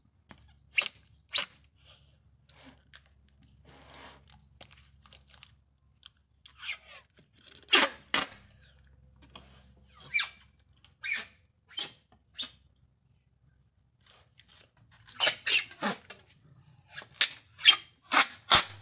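Kapton tape being peeled off its roll and pulled tight around a block of LiFePO4 cells, in short irregular pulls, several close together near the end.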